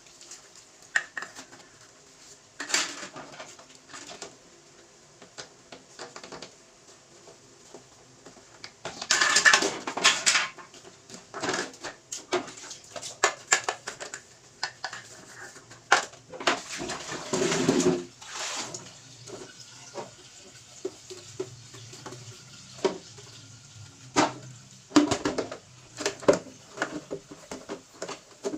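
Clattering and knocking of dishes, containers and fridge parts being handled and set down during a refrigerator clean-out, with two longer rushes of noise, about nine seconds in and again near eighteen seconds.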